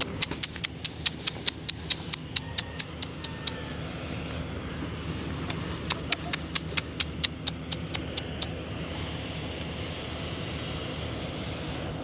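Quick footsteps on dry, gravelly dirt ground, each a sharp click, several a second. They come in two runs with a pause of a couple of seconds between them and stop about two-thirds of the way in. A steady low machine hum runs underneath.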